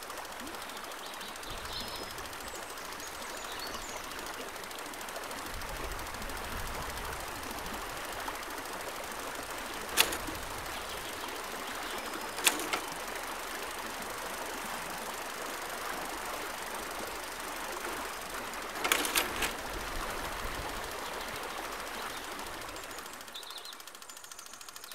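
Steady rushing of a river flowing, with a few faint bird chirps and several sharp clicks scattered through, some in quick pairs or threes.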